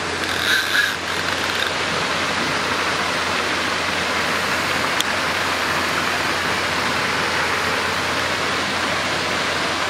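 Steady, even rushing of churning water, with one faint click about five seconds in.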